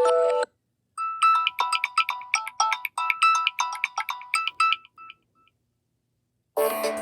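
Samsung Galaxy A03s ringtones played one after another. One cuts off half a second in, then a short ringtone of quick, short melodic notes plays for about four seconds and dies away. Near the end a fuller, denser ringtone starts.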